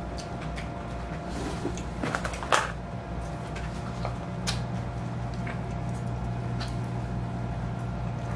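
Close-miked eating sounds: a person biting and chewing food by hand, with scattered mouth clicks and small crunches, the sharpest about two and a half seconds in, over a steady low hum.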